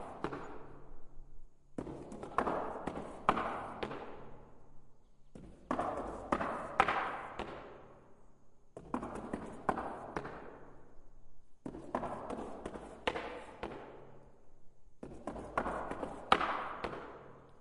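Wooden knocks on stairs in repeated bursts, each a quick run of several knocks that fades out, about every three seconds.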